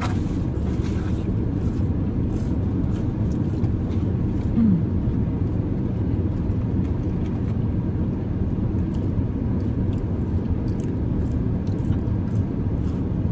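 Steady low rumble of a car's running engine and air conditioning heard inside the cabin, with faint small clicks and rustles over it. A brief rising hum sounds about four and a half seconds in.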